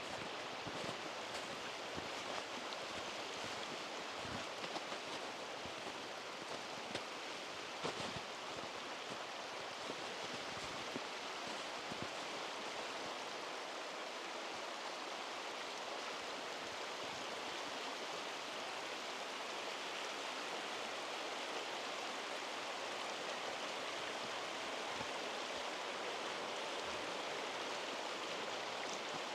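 Steady rushing of a mountain stream, with a few faint knocks in the first dozen seconds.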